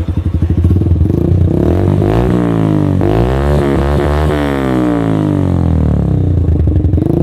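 Motorcycle engine running through a freshly fitted aftermarket silencer in a sound test. It idles, then is revved several times with the throttle, its pitch rising and falling, and settles back to idle near the end.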